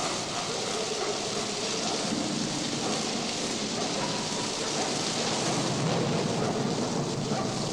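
Steady rain, an even hiss with no break.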